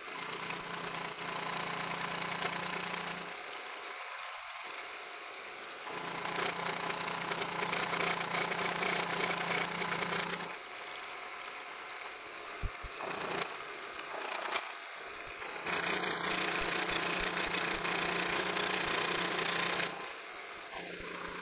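Milling machine cutting with a dovetail cutter on a vise-held workpiece: the spindle and cut run with a steady hum and a hissing cutting noise. The sound swells in three louder passes as the table feeds the part past the cutter, with quieter stretches and a few sharp clicks between them.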